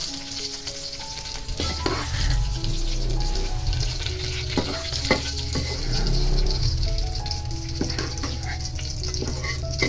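Hot cooking oil sizzling in a wok as freshly fried chillies, shallots and spring onions drain in a wire strainer above it, with a few sharp clicks. A low rumble comes in about a second and a half in.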